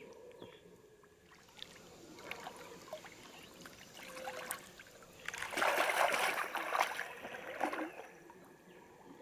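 Shallow river water splashing and sloshing as a large redtail catfish is let go and swims off, with a quieter trickle at first and the loudest splashing from about five and a half to eight seconds in.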